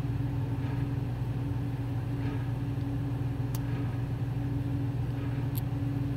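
Steady low mechanical hum of a motor or appliance, with two small sharp clicks about three and a half and five and a half seconds in as fountain pen piston parts are pushed out by hand.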